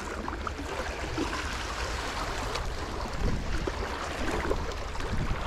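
Wind buffeting the microphone as a steady low rumble, over a continuous wash of small waves against shoreline rocks.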